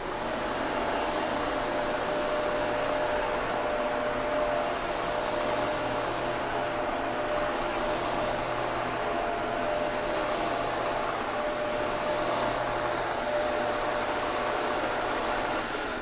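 Shark Apex DuoClean Zero-M upright vacuum switching on and running steadily on carpet, sucking up a pile of dog hair. The rush of air carries a thin, high motor whine that climbs to pitch within the first half second and then holds steady.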